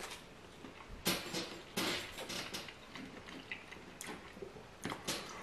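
Rustling and light scraping of a cardboard takeout box as hands pick a piece of food out of it, with a few short louder rustles.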